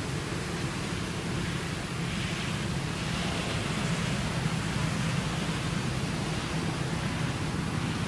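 Steady rushing outdoor background noise with a low rumble underneath, even throughout.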